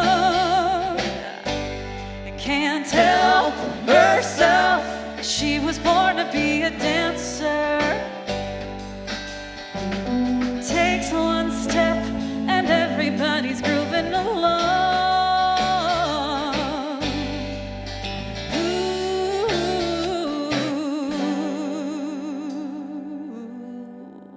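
Live rock band (guitar, keyboards, bass guitar and drums) with sung vocals, playing the ending of a song. The drums and bass stop about three seconds before the end, and a held final chord fades out.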